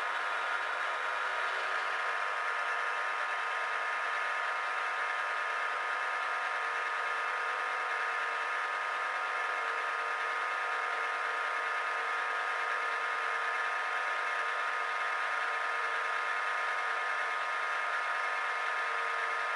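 Milling machine running steadily with a drill bit in its chuck cutting into a metal plate clamped to the table. A constant whine made of several steady tones.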